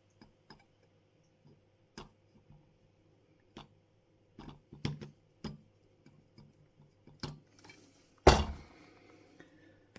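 Scattered light clicks and taps from handling a die-cast model bus and tools, with one louder knock about eight seconds in.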